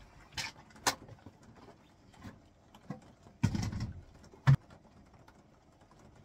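An empty plastic five-gallon bucket and a plastic crate being set in place, making hollow plastic knocks. There are two light clicks within the first second, a heavier thump about three and a half seconds in, and one sharp knock a second later, the loudest sound.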